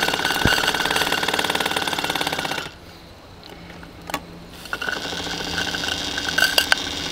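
Small steam engine of a toy live-steam crane running fast with a rapid, even beat as it drives the winch gearing, lifting a cast-iron brake drum. It cuts off suddenly under three seconds in, then starts running again, more quietly, about two seconds later, with a few sharp clicks.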